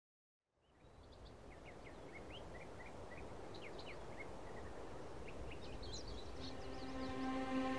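Small birds chirping, many short rapid calls over a soft outdoor hush that fades in from silence. A held music chord fades in near the end.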